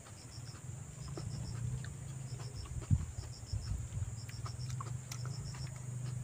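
Eating noises: small clicks and crunches of crab shell being cracked and chewed, with one sharp crack about three seconds in. Behind them are a steady low hum and a high insect chirp that repeats in short groups of three or four pulses about once a second.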